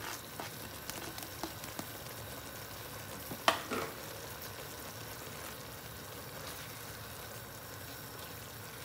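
Chicken, carrots and freshly added shredded cabbage frying in sauce in a wok on high heat: a steady sizzle. A slotted metal spatula clinks against the wok a few times, most sharply twice about three and a half seconds in.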